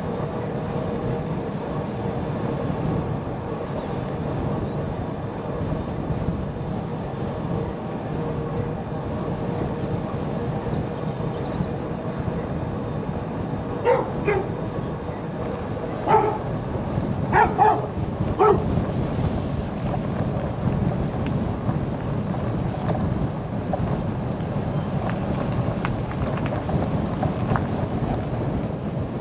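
Steady wind and road rumble from riding, with a dog barking five or six times in a short cluster around the middle.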